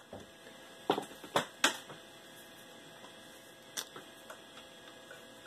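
Clicks of a Fluke 83 multimeter's rotary selector switch being turned. There are three sharp clicks about a second in and a fainter one near four seconds.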